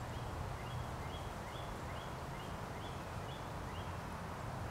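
A songbird calling a run of about eight short, repeated two-pitched notes, roughly two a second, stopping a little before the end, over a steady low outdoor rumble.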